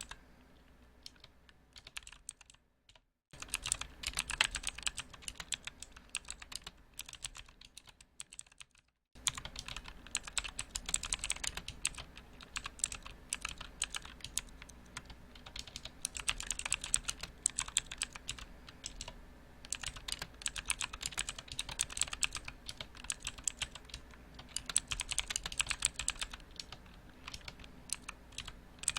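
Typing on a mechanical keyboard: fast, uneven runs of sharp clacking keystrokes. It is sparse in the first few seconds, and the sound cuts out completely for a moment about 3 seconds in and again about 9 seconds in.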